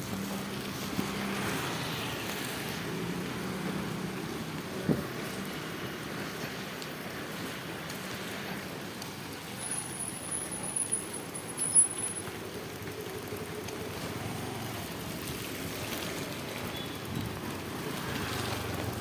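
Busy street traffic: vehicle engines running under a steady hiss. A thin high whistle lasts about two seconds near the middle, and there are a few sharp knocks, the loudest shortly after it.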